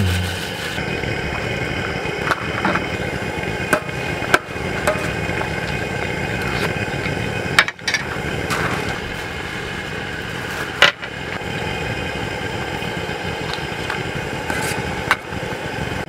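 Portable gas camping stove burner running steadily under a pot of sliced rice cakes that is coming to a foaming boil. A few sharp clicks or knocks stand out over it.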